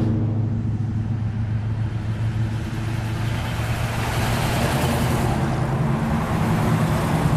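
Classic Mopar muscle cars driving past one after another, their engines giving a deep, steady rumble that swells as each car goes by.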